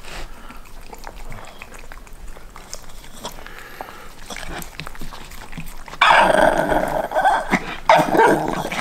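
Soft licking and mouth sounds from dogs eating. About six seconds in, a miniature pinscher breaks into a loud, drawn-out grumbling growl in two stretches, begging for its share of the food.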